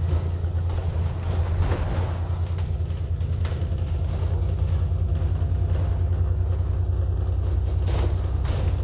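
ADL Enviro 400 double-decker bus running along the road, a steady low engine and road rumble heard from on board, with a few short knocks and rattles from the bodywork.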